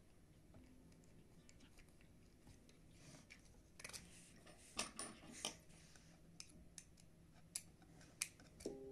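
Faint clicks and taps of a hex key and small machine screws against a 3D-printed plastic part as a screw is fitted. The sharpest clicks come in a cluster about four to five and a half seconds in, with a couple more near the end.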